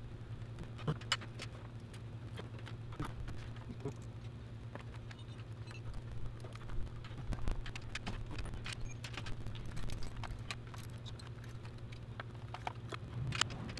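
Scattered light metallic clicks and clinks of hand tools and parts being handled down in an engine bay, irregular rather than a steady ratchet rhythm, over a steady low hum.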